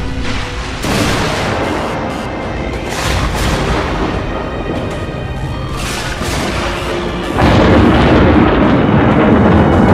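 Dramatic film score with deep booms. About seven and a half seconds in, a louder, heavy rumble of thunder joins and holds.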